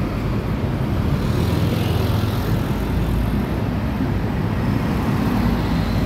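Dense, slow-moving road traffic close by: the engines of large intercity coaches, cars and motorcycles running as they crawl past, a steady deep rumble.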